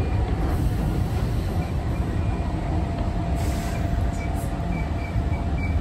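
Keihan electric train running along the track, heard from inside the front car: a steady low rumble of wheels and running gear, with a faint thin tone held above it.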